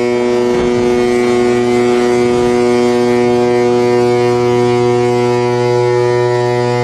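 A ship's horn sounding one long steady blast during a sideways ship launch, over the rush and splash of water as the hull hits the canal.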